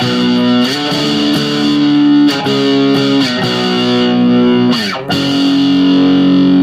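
Electric guitar on its bridge pickup played through a SubZero Snowstorm distortion pedal on its crunch setting: distorted chords rung out and changed several times, then one chord held from about five seconds in.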